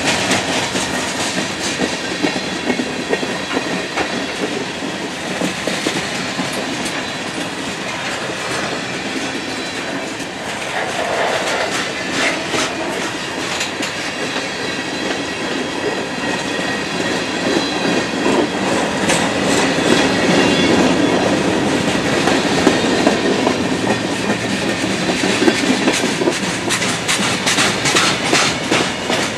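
Freight train of covered hoppers and tank cars rolling past close by: a steady rumble of steel wheels on rail with rhythmic clickety-clack as wheels cross rail joints, growing a little louder in the second half.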